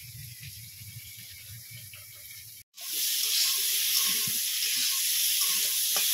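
A short, quiet stretch with a faint low hum, then, after a brief cut about two and a half seconds in, potato and tomato pieces sizzling loudly in hot oil in a metal karai, stirred and scraped with a spatula.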